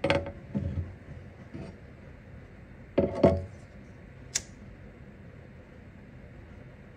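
Handling noises in a small room: a couple of knocks and clacks of hard objects right at the start, another pair about three seconds in, then a brief high hiss.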